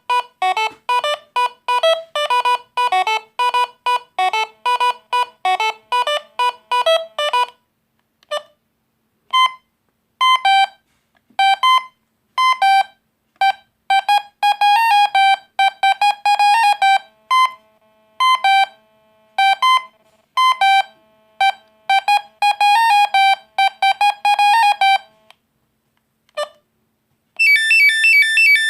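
Alcatel One Touch Easy DB mobile phone playing its monophonic ringtones one after another: a quick melody of short beeping notes, then after a pause a few scattered notes and a second melody, and near the end a rapid high-pitched beeping tune.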